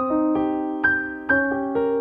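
Background piano music: single notes struck one after another, roughly two a second, each ringing and fading.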